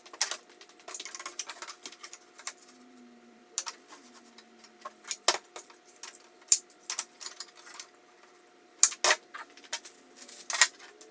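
Irregular light clicks and knocks of tools and wood being handled on a workbench, about a dozen sharp taps spread unevenly, with no saw running.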